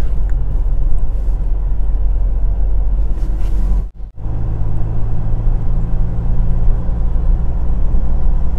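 Steady low rumble of a car driving, heard inside the cabin: engine and road noise. It cuts out for a moment about four seconds in, then goes on with a steady low hum.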